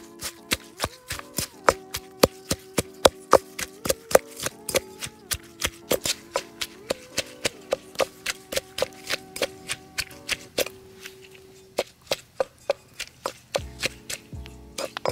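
Wooden pestle pounding leafy greens and tomato in a metal bowl, a steady run of thuds about three or four a second.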